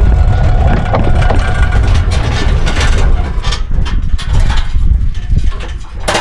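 Electric tricycle rear axle knocking and rattling over a heavy low rumble, with a run of sharp, irregular knocks from about two seconds in. This is the abnormal noise and severe shaking of a faulty rear axle.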